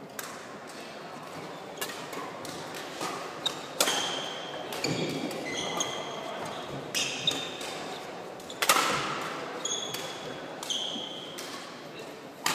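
Badminton rally: sharp racket-on-shuttlecock hits and short high squeaks of sneakers on a wooden court, ringing in a large hall. The loudest hit comes near the middle.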